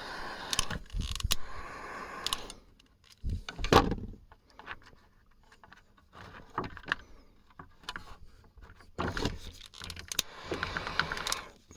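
Electric heat gun blowing to shrink heat-shrink tubing, cutting off after a couple of seconds and running again near the end, with scattered clicks and knocks of handling in between.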